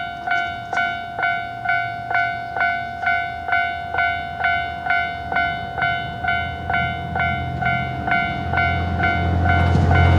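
Japanese level-crossing warning bell ringing its repeated 'kan kan kan', an electronic bell tone struck about twice a second. A low rumble of an approaching train builds through the second half, and near the end the bell is swamped as the train's rushing noise arrives at the crossing.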